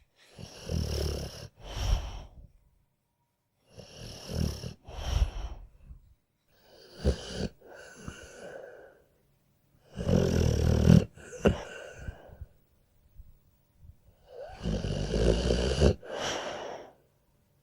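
A sleeping dog snoring steadily: five breath cycles, each a longer snore followed at once by a shorter one, about every three and a half seconds, with quiet pauses between.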